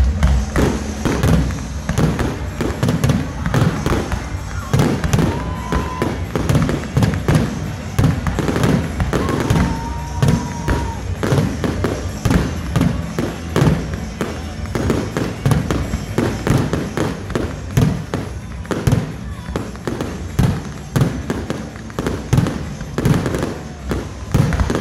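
Aerial fireworks shells bursting in a rapid, unbroken barrage, several bangs a second.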